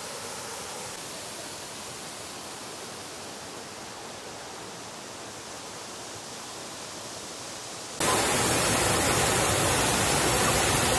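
Steady rush of falling water from a small waterfall; about eight seconds in it becomes suddenly much louder, as if heard much closer.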